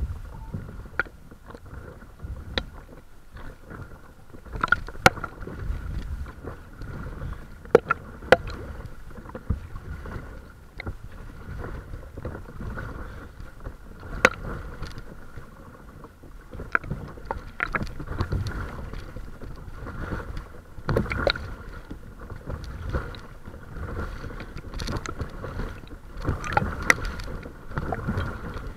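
Water lapping and slapping against the hull of a paddled kayak or paddleboard, with irregular sharp knocks and splashes over a steady low rumble of water and wind on the microphone.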